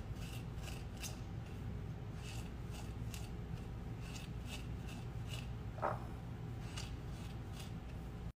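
Small spatula scraping and rubbing through granulated sugar in a ceramic bowl, working lemon zest into it. It makes short gritty strokes, about one or two a second, over a steady low hum, with one brief squeak about six seconds in.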